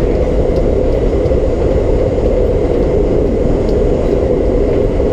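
R32 subway car running at speed, with a steady loud rumble of wheels on rail and traction motors and a few faint clicks.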